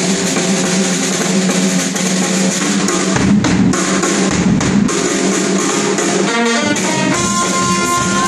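Small brass band playing: sousaphone, trumpet and saxophone over bass drum and snare drum, with several hard drum strokes in the middle and a held horn note near the end.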